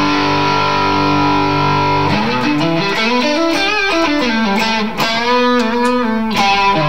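Electric guitar played through a Valeton GP-200LT multi-effects unit on a crunch overdrive preset, turned up for lead: a held chord rings for about two seconds, then a lead line with string bends and vibrato.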